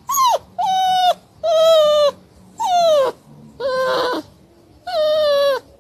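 Dog making a series of six whining barks, about one a second, each call starting high and dropping in pitch: a 'quiet speak' on command.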